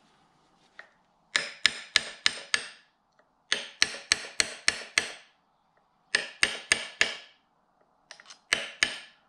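Hammer blows on metal, tapping new bearing parts into a jet ski's mid-shaft bearing housing held in a vise. The blows come in short runs of four or five, about four a second, each with a sharp ring, with pauses of about a second between runs.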